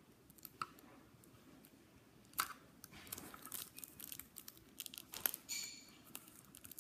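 Faint crinkling and rustling of a toy box's packaging being handled and rummaged through, with sharper crackles about two and a half and five seconds in and a short high-pitched squeak just after the second.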